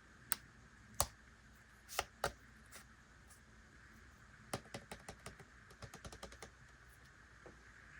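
Sharp clicks and taps of small hard items being handled on a tabletop during an unboxing: a few single clicks, then a quick irregular run of lighter clicks about halfway through.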